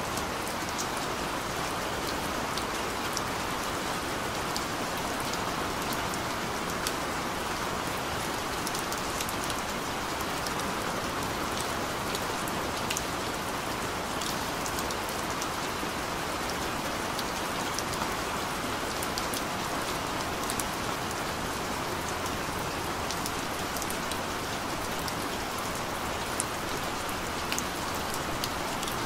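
Gentle, steady rain: an even hiss with scattered sharp drop ticks throughout.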